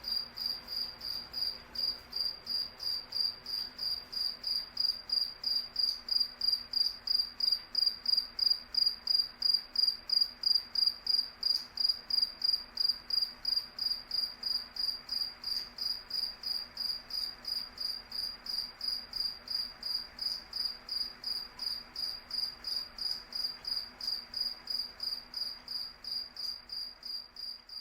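Cricket chirping: a high, pure chirp repeated in a steady, even rhythm of about three chirps a second.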